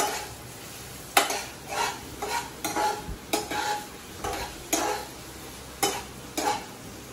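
A metal spoon stirs and scrapes chopped onions around a wok-style kadai of hot oil, giving about nine irregular scrapes that stop near the end, over the steady sizzle of the onions frying until light brown.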